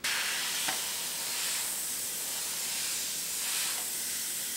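Badger Renegade Krome airbrush spraying thinned Indian ink: a steady hiss of air that starts abruptly. The air pressure has been turned down so low that the ink stipples, which is way too low.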